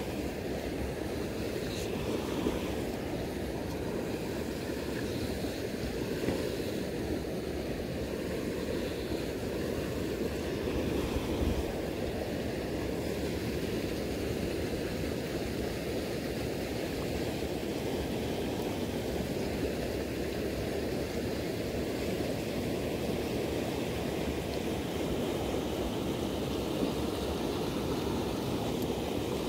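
Steady rushing of a shallow river running over a riffle.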